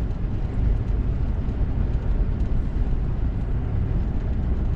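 Steady low road and engine rumble inside a moving pickup truck's cabin.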